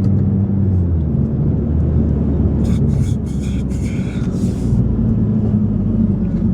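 Car engine and road noise droning steadily inside the cabin of a moving car. A few short hissy rustles come about halfway through.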